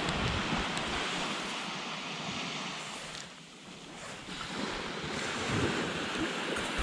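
Small surf breaking and washing up a sand beach, with wind buffeting the microphone. The wash eases briefly about halfway through, then builds again.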